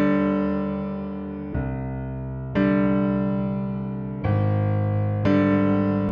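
Keyboard music, electric-piano-like: slow sustained chords, a new one struck about every one to one and a half seconds, each fading slowly.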